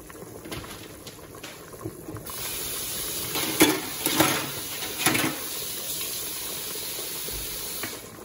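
Kidney beans boiling in water in an open electric cooker pot: a steady bubbling hiss that grows louder a couple of seconds in, with a few sharp knocks against the pot around the middle.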